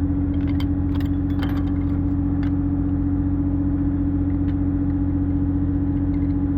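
An engine running steadily at a constant speed with an even hum, with a few light metal clicks and clinks in the first couple of seconds.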